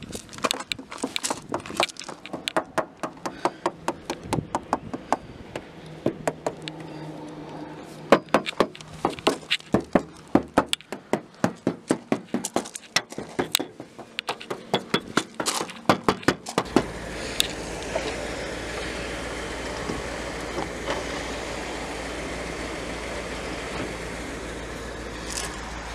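Fingers tapping on the steel body panels of a 1970 Cadillac De Ville, many quick taps in runs along the door and side. About two-thirds of the way in the tapping stops and a steady low rumble with hiss takes over.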